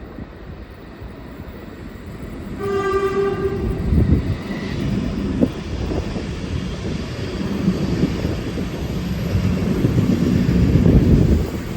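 A Leslie RS5T horn on a V/Line N class diesel-electric locomotive gives one short blast about two and a half seconds in, lasting under a second. Then the locomotive and its carriages rumble past on the rails, growing louder until they ease off near the end.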